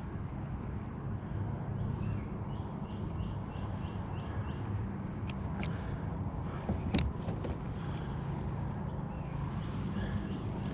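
Steady wind noise on the microphone. Twice, a bird sings a quick run of short falling chirps, about four a second, and a few sharp clicks come in the middle.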